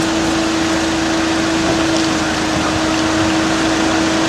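An engine running steadily: a constant drone with one strong, unchanging hum over an even rushing noise.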